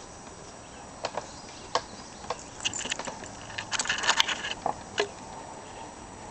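A cat and a St. Bernard puppy scuffling in play: a run of light, irregular clicks and scrapes, busiest about four seconds in.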